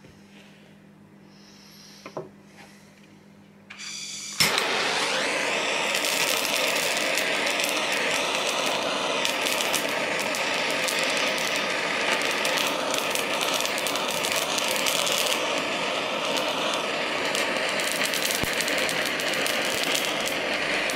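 Handheld gas torch being lit about four seconds in: a short hiss of escaping gas, then a sudden start into a steady, loud flame hiss as the jet is played over a bell pepper's skin.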